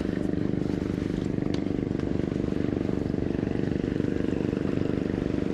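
A small engine running steadily at an even speed, with a rapid, regular beat.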